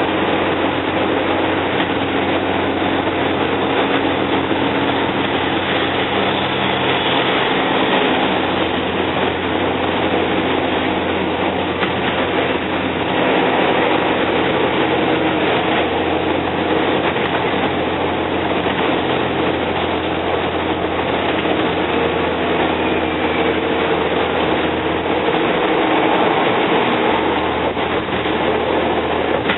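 Cummins L10 inline-six diesel engine of a Volvo Olympian double-decker bus running under way, with road noise, heard from inside the bus. The low engine note changes about a quarter of the way in and again near the end.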